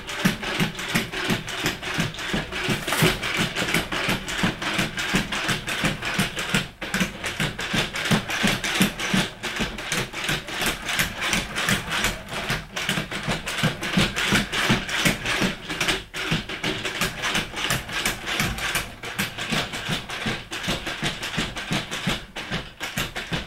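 mjbots quad A1 robot dog walking on a wooden floor: its feet tap the floorboards in a quick, uneven patter over the steady noise of its brushless leg actuators.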